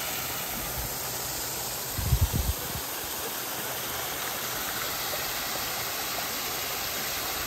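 Running water, a steady rushing hiss like a garden stream or small waterfall, with a brief low thump about two seconds in.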